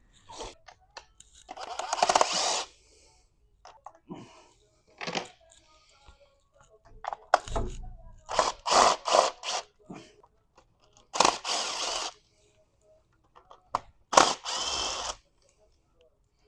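Cordless power tool running in four short bursts, with clicks and knocks of tools and parts between, as fasteners are taken out ahead of removing the valve cover.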